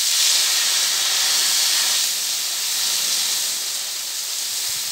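High-pressure jet sprinkler spraying a tall stream of water, a loud, steady hiss that eases slightly after about two seconds.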